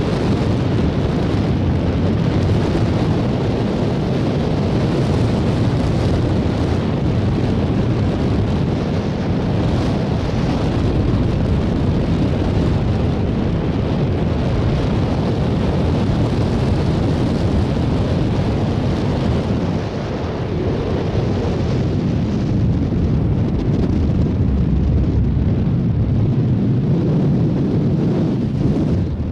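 Strong wind rumbling and buffeting on the microphone of a camera carried by a paraglider in flight, a steady loud noise that eases briefly about two-thirds of the way through.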